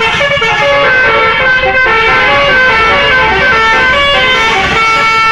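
Bus telolet horn playing a quick tune of short notes that step up and down in pitch, over a low rumble.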